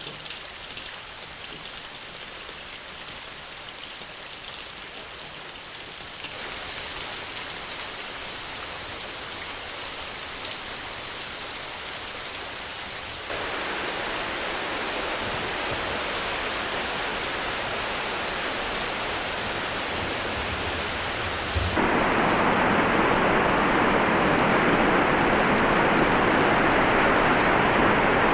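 Steady rain falling, a continuous hiss of drops. It gets heavier and louder in sudden steps about six, thirteen and twenty-two seconds in.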